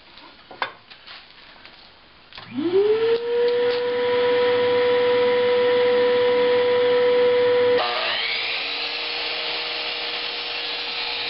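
A DeWalt miter saw starts about two and a half seconds in, its motor whining up to speed and then running with a steady high whine. About eight seconds in the sound turns broader and rougher as the blade goes down through the 2x4 and crosscuts it.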